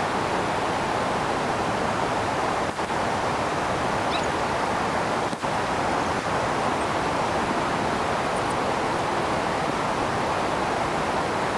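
Floodwater rushing steadily over and through a concrete culvert and weir, a constant loud wash of water.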